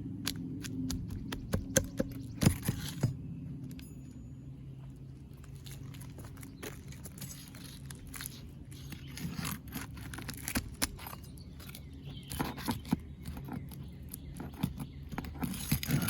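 Metal roofing hand tools clinking, knocking and scraping against asphalt shingles and nails as nails are worked loose from a three-tab shingle roof, in scattered sharp clicks with short scraping stretches.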